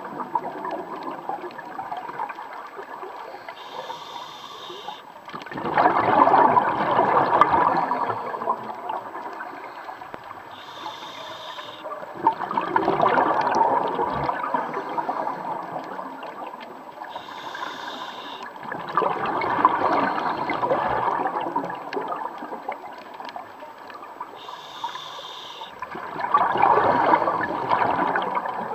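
Scuba diver breathing through a regulator underwater: a brief hiss on each inhalation, then a louder rush of exhaled bubbles, in a slow steady cycle of about one breath every seven seconds, four breaths in all.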